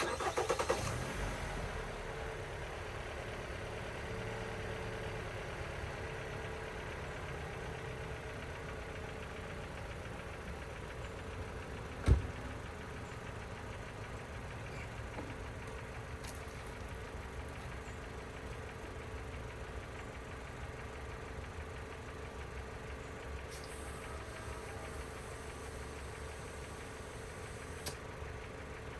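An engine starts and settles into a steady idle. A single sharp knock about twelve seconds in is the loudest sound, with a few faint clicks later.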